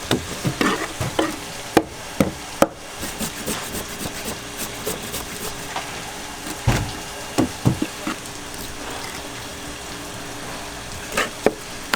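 Knife and fish knocking on a cutting board as fish are filleted for sashimi: irregular sharp knocks, a quick run of them in the first few seconds and a few louder ones later, over a steady hiss.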